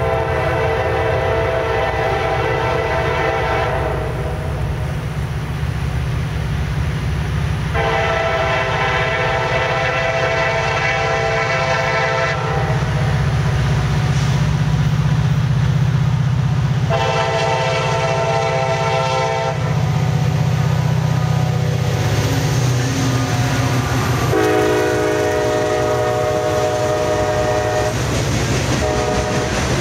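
Freight locomotive's multi-chime air horn sounding four blasts, long, long, short, long: the standard grade-crossing signal. Under it runs the low rumble of the diesel engine, loudest as the locomotive passes about halfway through. The last blast is lower in pitch as the locomotive moves away, and the freight cars start rolling by near the end.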